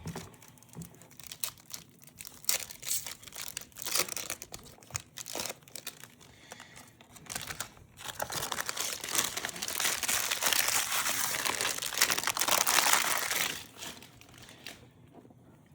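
Trading card pack wrapper being handled, torn and crinkled. Scattered crackles and clicks come first, then steady, loud crinkling from about halfway that dies away a couple of seconds before the end.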